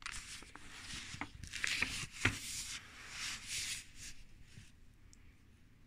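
Paper pages of a book rustling as it is opened and leafed through, with a few light taps among them; the rustling dies down about four seconds in.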